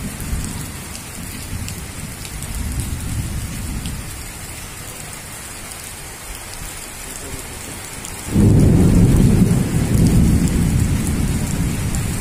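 Heavy rain falling in a steady hiss, with low rumbling underneath; a much louder low rumble starts suddenly about eight seconds in and carries on.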